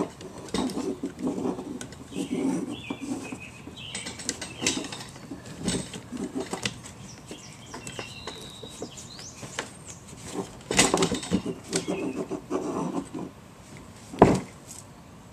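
A plastic fuel pump module being worked by hand down into a fuel tank opening: irregular knocks, clicks and scraping, with a sharp knock near the end. Birds chirp faintly in the background.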